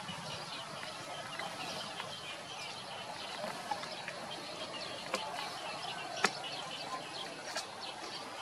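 Outdoor ambience with small birds chirping. Three sharp clicks come about five, six and seven and a half seconds in, the middle one the loudest.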